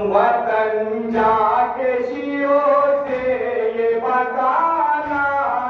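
A group of men chanting a noha, a Muharram mourning lament, together in long held notes with a lead voice over a microphone. A dull thump comes about every two seconds, the mourners beating their chests (matam).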